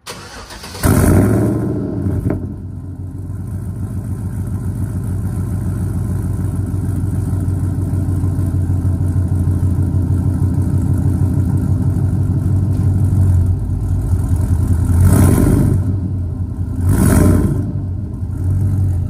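A 2011 GMC Sierra's 5.3-litre V8, breathing through long-tube headers and a catless 3-inch exhaust with a Magnaflow muffler, fires up with a loud flare about a second in, then settles into a steady, pulsing idle. Near the end the throttle is blipped twice in quick succession.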